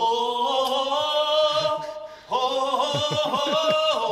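Voices singing a held choir-like chord in long sustained notes that shift in steps, breaking off briefly about two seconds in and starting again on a new chord.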